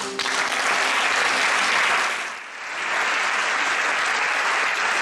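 Theatre audience applauding, a dense steady clapping that dips briefly about halfway through and then picks up again.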